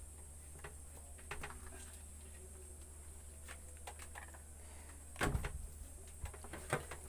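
Tools and a meter being handled on a silicone work mat: scattered light clicks and knocks, with a louder thump about five seconds in and another sharp knock near the end. A steady low hum and a faint high whine run underneath.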